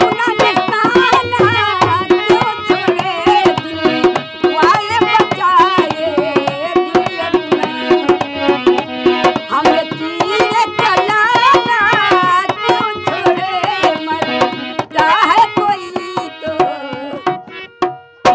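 An elderly woman singing a folk song, accompanied by a dholak played with quick hand strokes. The drumming thins out near the end and the music cuts off.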